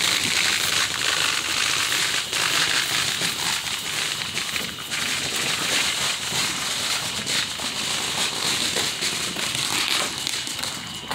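Fireworks crackling, a dense run of rapid small pops and crackles that eases off a little near the end.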